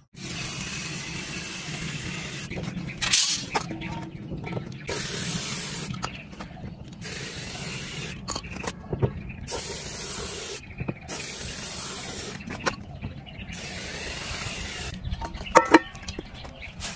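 Aerosol spray paint cans hissing in a series of bursts, each lasting one to two seconds with short pauses between, as paint is sprayed onto a car door. A few sharp clicks come near the end.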